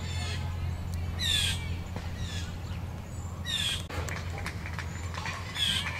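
A bird calling repeatedly outdoors: short, high calls that fall in pitch, about one every one to two seconds.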